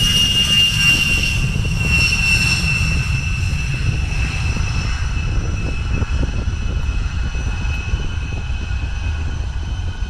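A-10 Thunderbolt II's twin TF34 turbofan engines running with a loud high-pitched whine over a low rumble. The whine slowly falls in pitch and the sound fades a little as the jet moves away down the runway.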